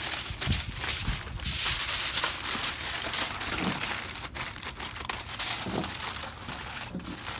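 Aluminium foil crinkling and crumpling as it is folded and crimped shut around a wrapped package, loudest about two seconds in.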